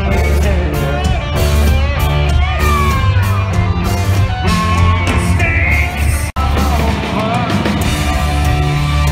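Rock band playing loudly with a singer, over heavy bass and drums. The sound drops out for an instant about six seconds in.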